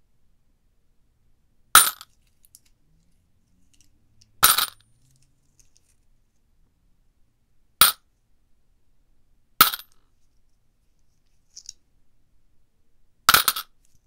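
Loose coins dropped as donated change, clinking in five short jingles a few seconds apart, the second and last a little longer with several quick hits, and a faint single clink between the last two.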